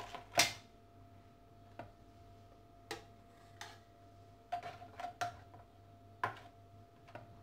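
Metal offset spatula sweeping across cream-filled pastry molds to level them: scattered light clicks and scrapes as the blade meets the molds, the sharpest about half a second in.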